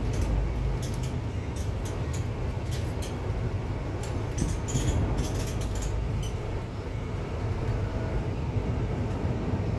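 Upper deck of a London double-decker bus under way: a steady low rumble from the engine and road, with frequent light clicks and rattles.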